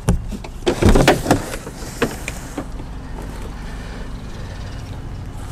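Cardboard packing and plastic wrap rustling and knocking as a boxed lawn mower is unpacked, loudest about a second in and stopping after about two and a half seconds. A steady low engine hum from lawn mowers running in the distance continues underneath.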